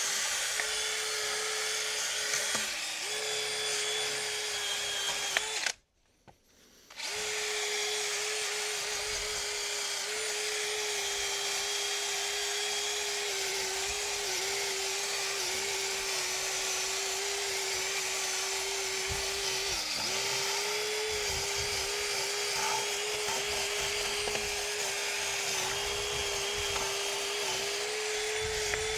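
Power drill spinning a steel wire brush against an alloy wheel, scouring off old, salt-damaged paint down to bare metal. The motor runs steadily with a hissing scrub, its pitch sagging briefly under load a few times, with a short break about six seconds in.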